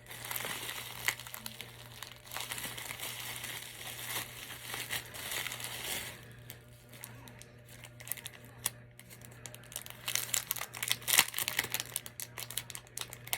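A blind-bag packet being handled, crinkled and torn open by hand. The crackling is dense at first, eases off for a few seconds, then comes back as sharper, crisper crinkles near the end.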